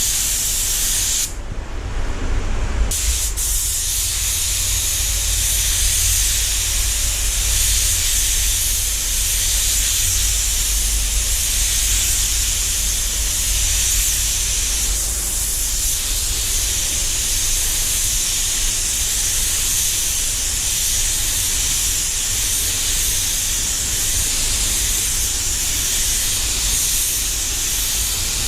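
Compressed-air paint spray gun hissing steadily as it sprays paint onto a car panel, over a low steady hum. The hiss breaks off for about a second and a half near the start, then resumes.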